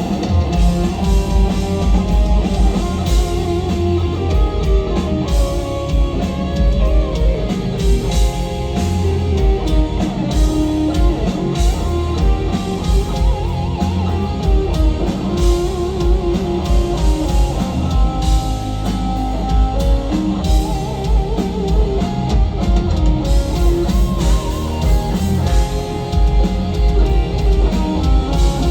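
Live instrumental metal: lead electric guitar over drum kit and band, recorded loud from the audience.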